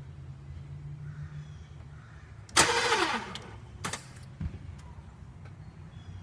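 2000 Volvo V40 starter cranking the engine in one short burst of under a second, its pitch falling as it winds down, and the engine does not catch: a slow crank and no start despite a good battery and a new crank sensor. A click and a thump follow.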